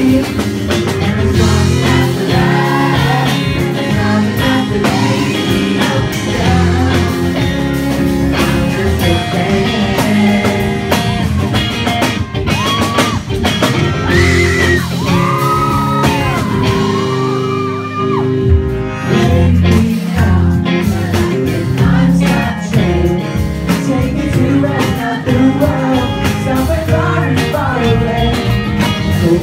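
Live rock band playing with a male singer singing into a microphone over electric guitar and the rest of the band.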